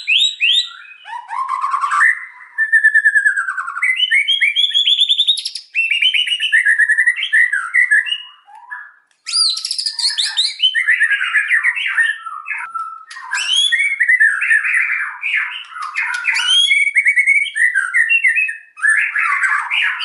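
White-rumped shama (murai batu) singing a fast, varied song of whistles, trills and rapid strings of sharp repeated notes, with a short pause about nine seconds in.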